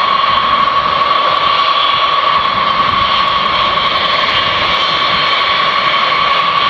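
Turbofan engines of B-52 Stratofortress bombers taxiing: a loud, steady jet whine with a strong high tone held throughout.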